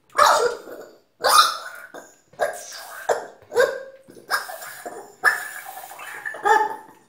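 Rubber chicken toy squeezed again and again, about seven times, each squeeze forcing out a wet, gurgling squawk as food mush sputters from its beak.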